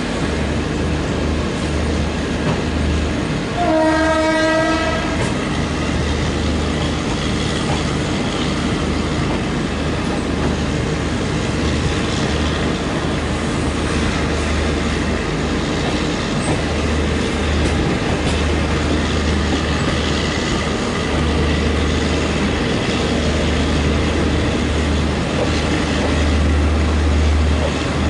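Duronto Express passenger train running slowly, its wheels clattering over the rail joints with a steady rumble. A train horn sounds once, briefly, about four seconds in.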